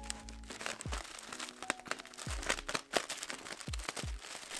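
Recycled-plastic bag crinkling as it is handled and pulled open, over background music with a steady beat of about one thud a second.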